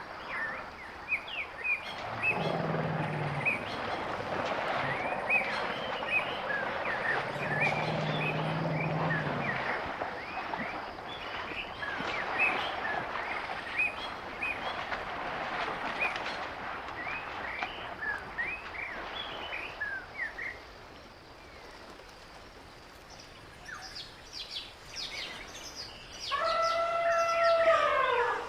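Outdoor ambience full of small birds chirping, with a low droning tone twice early on. It goes quieter, and near the end a loud, drawn-out animal call starts, falling slightly in pitch.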